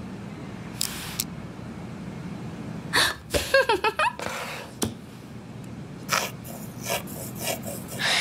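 A short wordless vocal sound from a person, about three seconds in, over a steady low room hum. Around it: a brief rustle about a second in and several small sharp clicks in the second half.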